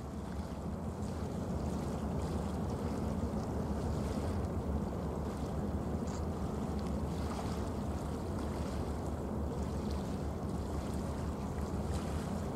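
Steady low rumble of wind buffeting the microphone over waterside ambience, with no distinct events.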